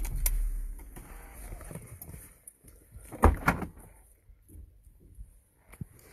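Someone getting out of a car: clicks and handling rumble from a phone being moved, then a car door thumps about three seconds in, followed by softer rustling and a click near the end.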